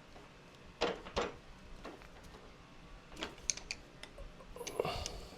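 Hard objects being handled and set down: two knocks about a second in, a few quick light clicks past the middle, and a short scrape near the end.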